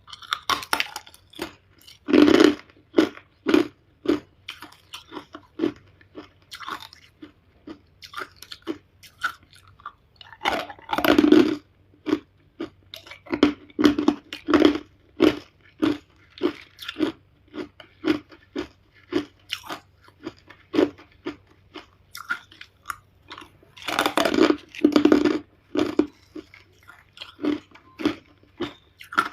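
Hard ice being bitten and chewed close to the microphone: repeated crisp crunches at about two a second, with bigger, louder crunching bites about two, eleven and twenty-four seconds in.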